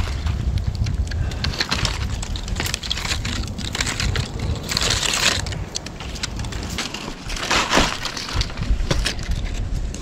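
Tree-climbing spikes and boots biting and scraping into tree bark during a climb, with the crackle and crunch of bark and dry twigs throughout and two longer scraping rushes about five and seven and a half seconds in.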